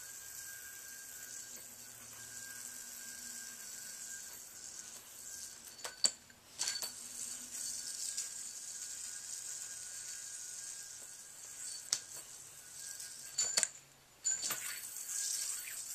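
General Yo KLR anodized metal yoyo spinning on its bearing with a steady high whir, broken by a few sharp clicks and two short gaps, about six and fourteen seconds in, where the spin stops.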